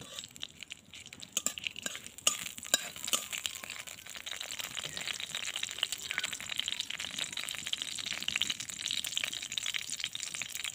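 Bay leaf, dried red chillies and panch phoron frying in hot mustard oil in a large kadai: a steady crackling sizzle that slowly grows louder. There are a few sharp clicks in the first three seconds as a metal spatula stirs the spices.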